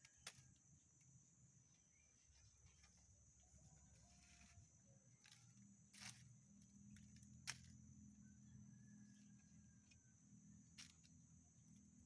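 Near silence: a faint steady outdoor background hum with a few soft, brief clicks.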